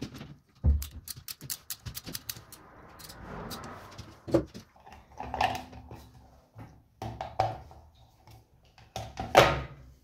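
Small handling noises on an air-compressor pressure switch: a quick run of clicks from a screwdriver at its terminals about a second in, then scrapes and knocks as its plastic cover is pushed into place, the loudest knock near the end.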